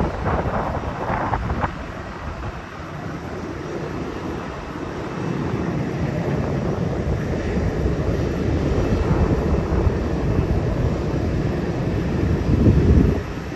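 Airliner engines heard from outside the airport: a loud passing rush that fades over the first two seconds, then a steady low rumble that slowly builds, with a louder low surge near the end that cuts off suddenly.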